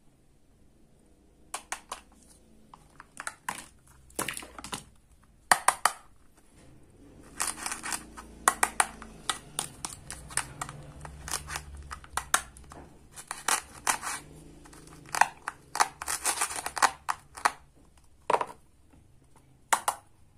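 Hard plastic toy pieces handled and knocked together: a plastic toy egg and toy dishes give irregular clicks, taps and short scraping rubs, some in quick clusters.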